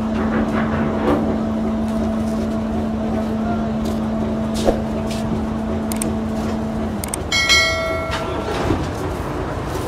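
Steady engine rumble with a low hum that stops about seven seconds in. A short horn note sounds about seven and a half seconds in.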